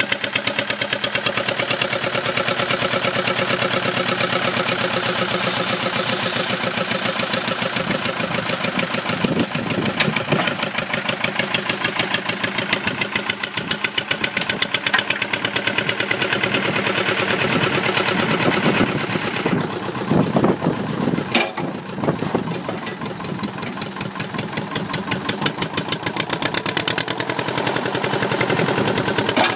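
Diesel engine of a Thwaites Tusker digger/dumper running, its exhaust beating in rapid, even pulses. The sound shifts and dips in level briefly about two-thirds of the way in.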